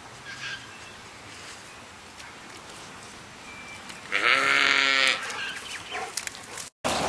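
A single loud, quavering animal call, bleat-like, lasting about a second midway through, over faint background.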